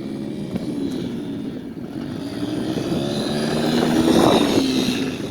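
Off-road vehicle's engine running, its pitch rising as it revs and growing louder to a peak about four seconds in, then easing off near the end.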